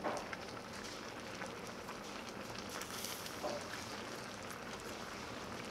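Korean spicy seafood stew cooking in a metal pot on a tabletop burner: a steady simmering hiss, with a few light clicks of metal tongs and kitchen scissors against the seafood and pot.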